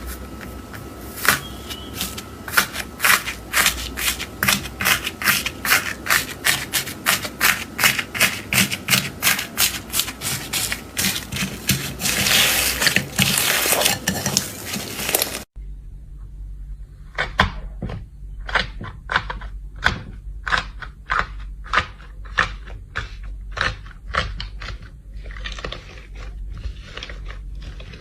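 Slime being squeezed and pressed by hand, giving a quick run of crunchy crackling pops and clicks, about three a second. About halfway through the sound cuts abruptly to a quieter stretch of the same clicking.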